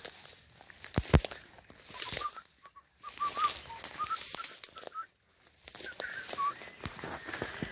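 Dry grass and weed stems rustling, crackling and snapping as someone pushes through tall vegetation, in uneven bursts. A series of short high chirps comes through in the middle stretch.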